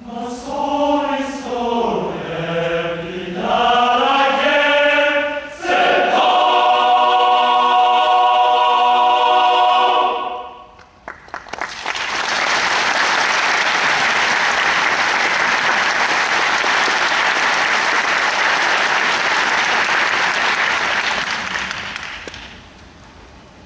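A large men's choir singing ends a piece on a long held chord that cuts off about ten seconds in. After a few scattered claps, audience applause breaks out, runs for about ten seconds and dies away near the end.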